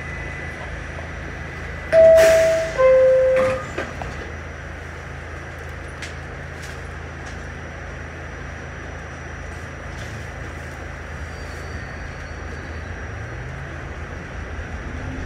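Door-closing chime of an R46 subway car, a higher note then a lower one about two seconds in, followed by a few clicks as the doors shut. Then the car's steady low rumble, with a low hum rising in pitch near the end as the train moves off.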